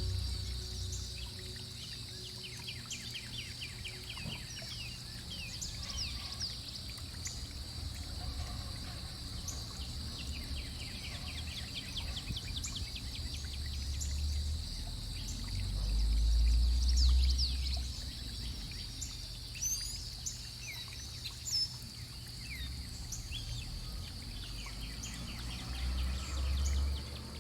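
Water trickling and splashing in a small pump-driven garden fountain built from a plastic pot, with birds chirping and trilling now and then. A few low rumbles come and go, loudest about halfway through and near the end.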